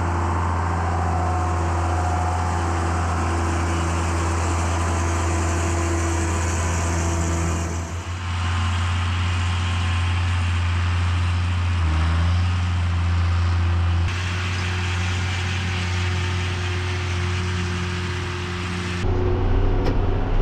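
Tractor engine running steadily, its tone and pitch changing abruptly about four times as one stretch gives way to the next.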